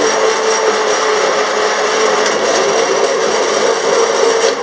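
Hand-held immersion blender running steadily, its motor holding one pitch as it purées a thick onion and cream sauce in a steel pot.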